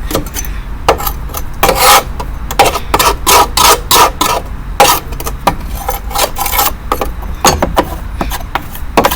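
Scraper working over the underside of a lawn mower deck, knocking loose caked dead grass in quick, irregular strokes.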